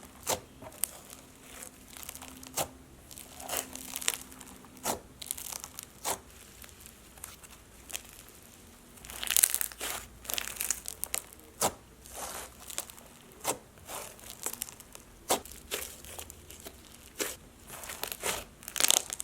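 Cherry snow cone slime being squeezed and pressed by hand, giving a soft crunch: irregular crackles and clicks, with a louder, denser patch about nine seconds in.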